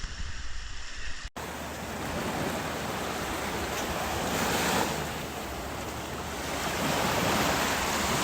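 Surf washing onto the beach with wind buffeting the microphone, the wash swelling up twice; a brief dropout about a second in.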